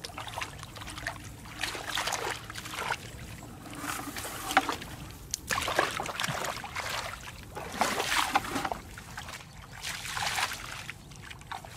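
Hands groping through shallow muddy water, with irregular sloshing and splashing.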